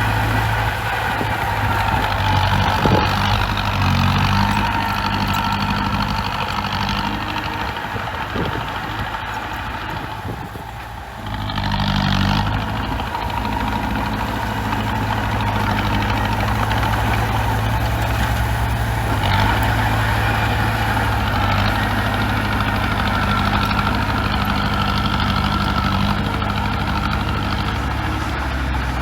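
Bulldozer's diesel engine running steadily. About ten seconds in it drops off briefly, then comes back up to a fuller, louder sound.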